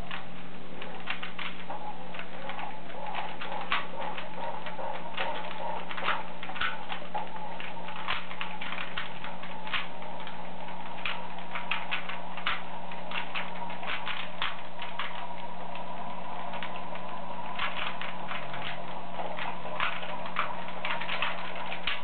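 Rubik's Cube being turned rapidly during a timed solve: irregular flurries of plastic clicks as the layers snap round, several a second, over a steady low hum.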